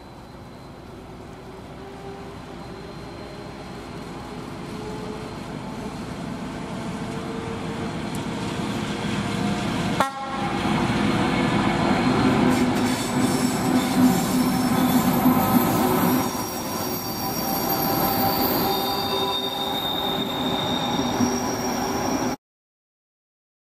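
Diesel locomotive hauling a passenger train approaches, its engine growing steadily louder for about ten seconds, then the coaches roll past with wheel rumble and high squealing from the wheels on the curve. The sound cuts off suddenly near the end.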